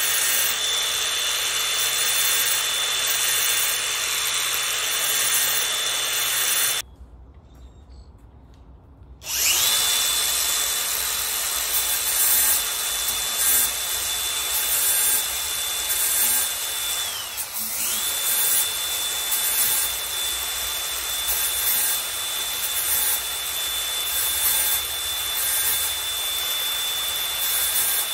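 DeWalt angle grinder running with a steady high whine, its disc grinding the steel teeth of a hedge trimmer blade to sharpen them. The grinder cuts out about a quarter of the way in, then starts again and winds back up; about halfway through its whine briefly drops as the disc is pressed harder into the blade.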